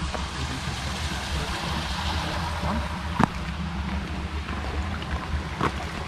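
Small brook running steadily over its bed, with one sharp click about three seconds in.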